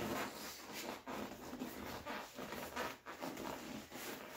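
Hands rubbing and scuffing a vinyl seat cover against the seat foam in a run of short, irregular rustles, as its Velcro strips are worked into place.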